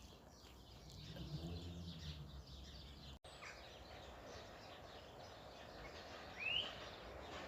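Faint outdoor background noise with birdsong; a single rising bird chirp about six and a half seconds in is the loudest sound, and a brief low pitched hum is heard between one and two and a half seconds.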